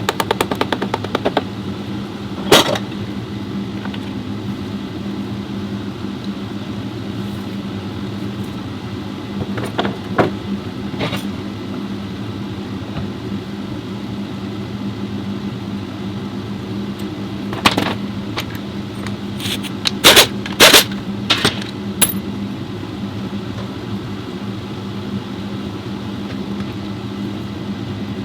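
Workshop sounds during transmission repair work: a steady machine hum, with a quick run of ticks at the start and scattered sharp metal knocks and clinks from tools and parts, the loudest cluster about two-thirds of the way through.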